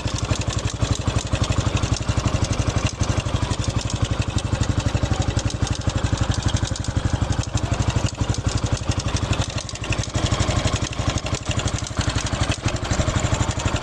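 Honda Pop 110i's single-cylinder engine idling with a steady, rapid even beat, carrying the engine noise that the owner of this new motorcycle considers abnormal.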